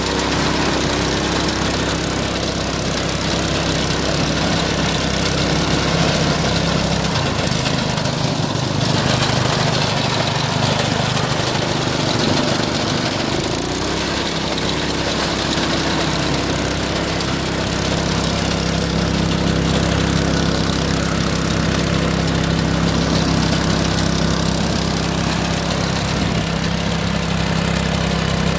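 Walk-behind crop reaper's small petrol engine running steadily under load while its cutter bar mows through dry millet stalks, with a hiss over the engine note. The engine note changes for several seconds in the middle, then settles back.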